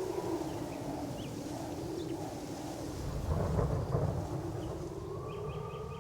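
Low rolling thunder that swells to its loudest about three to four seconds in, under a sustained drone of held tones. A higher held tone joins near the end.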